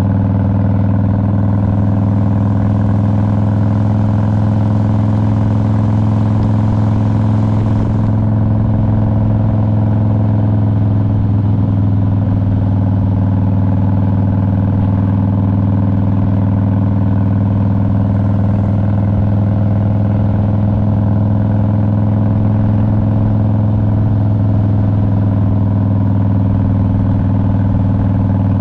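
2001 Harley-Davidson Road King's Twin Cam 88 V-twin engine running at a steady, unchanging pitch. A faint high hiss over it drops away about eight seconds in.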